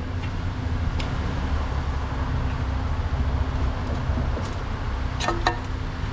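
Low, steady rumble of a motor vehicle engine running, with a few sharp metallic clicks: one about a second in and two close together near the end.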